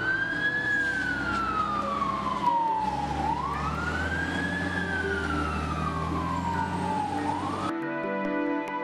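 Fire engine siren wailing, its pitch sweeping slowly up and then down twice, over a low rumble. It cuts off abruptly near the end and soft ambient music takes over.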